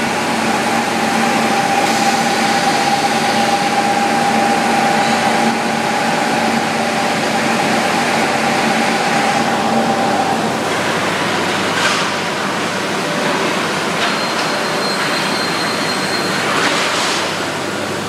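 Seamless steel tube hot-piercing mill running: a loud, dense industrial din with a steady two-tone hum that stops about ten seconds in, then a couple of sharp metallic knocks.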